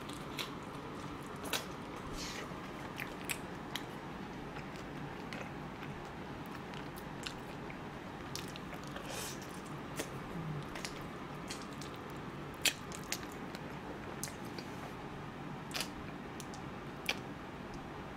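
Chewing and biting on fried and sauce-coated chicken, with scattered crisp crunches and wet mouth clicks over steady room noise; one sharp click about two-thirds of the way through is the loudest.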